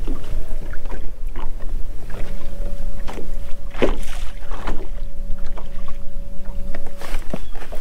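A bass boat's bow-mounted electric trolling motor humming steadily, coming on about two seconds in and cutting off near the end. Under it are a low wind rumble on the microphone and water lapping against the hull.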